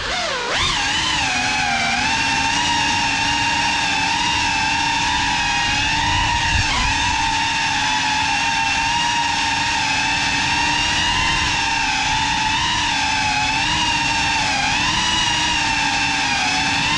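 Motors and propellers of a GEPRC Cinelog35 cinewhoop FPV quadcopter in flight: a steady buzzing whine whose pitch wavers with throttle and dips and recovers a few times, about half a second in, near seven seconds and near fifteen seconds.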